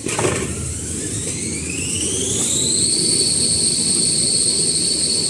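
Automatic kitchen towel paper rewinding machine speeding up: a whine rises in pitch over the first three seconds, then holds steady as the machine runs at speed over a low mechanical rumble.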